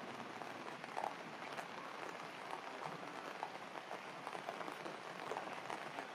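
Heavy rain falling steadily on wet surfaces, an even hiss dotted with the patter of individual drops.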